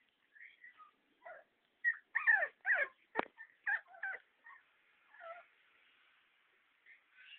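Two puppies fighting, giving a run of short yips and whimpers that come thickest and loudest about two to four seconds in. A sharp knock sounds about three seconds in.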